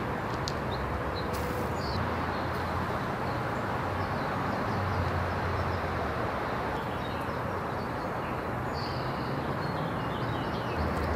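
Steady outdoor background noise, a low rumble under an even hiss, with a few faint high bird chirps.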